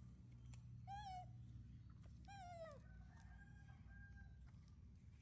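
Baby monkey giving two short, falling whimpering calls about a second apart, followed by a fainter held tone.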